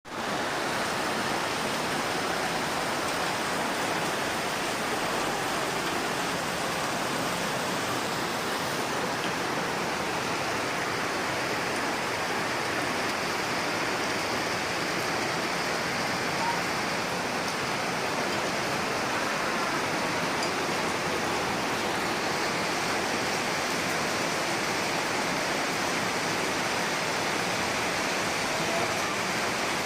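Heavy rain falling steadily, a constant even hiss with no let-up.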